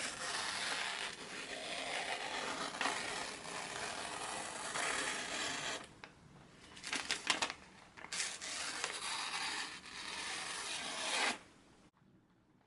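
A freshly sharpened bench chisel cutting, heard as long rasping stretches of shaving noise. The first runs about six seconds and the second about three, with a few sharp clicks between them. It cuts off suddenly near the end.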